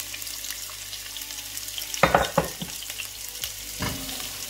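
Sliced onions sizzling as they fry in hot oil in a granite-coated pot, with a few knocks of a spatula stirring them, the loudest about two seconds in and another near the end.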